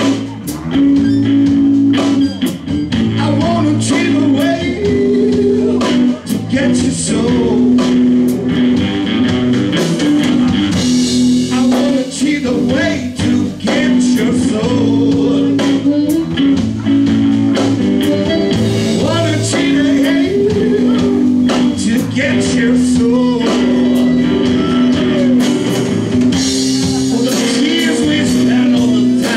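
A blues band playing live: electric guitars, drum kit and a harmonica blown into a microphone, with held, bending notes over a steady beat.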